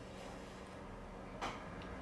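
A single sharp click about one and a half seconds in, an eating utensil tapping against the bowl, over a faint steady low hum.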